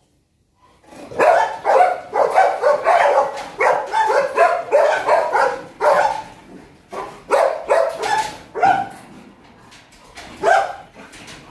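Kennelled dogs barking excitedly, starting about a second in with a quick run of barks about three a second, then spacing out, with a last loud bark near the end, the way dogs bark when they sense they are about to be let out.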